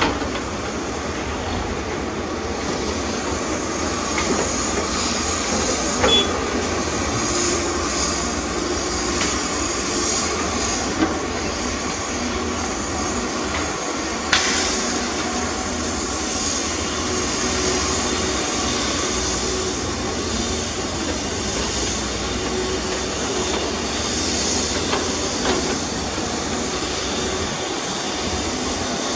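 Heavy diesel earthmoving machinery, excavator and dump truck, running steadily under load, with a few sharp metallic knocks and clanks.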